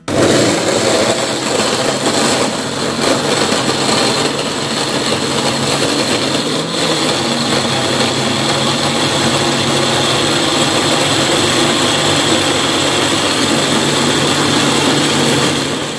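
Electric countertop blender motor running steadily at full speed, grinding chillies, shallots, garlic, candlenuts and turmeric with a little water into a wet spice paste. It starts suddenly and stops near the end.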